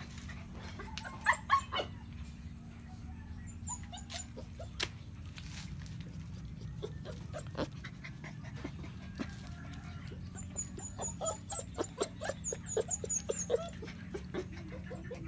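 Puppies whimpering and giving short yips: a few loud ones about a second in, then a quick run of them near the end, over a steady low hum.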